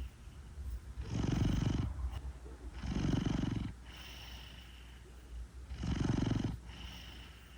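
A large domestic cat snoring in its sleep: three loud snores, each about a second long, with softer, higher-pitched breaths between them and a steady low rumble underneath.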